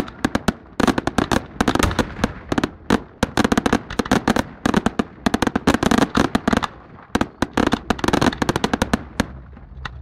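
Aerial fireworks going off in rapid, dense volleys of sharp bangs and crackles, with short lulls about three and seven seconds in.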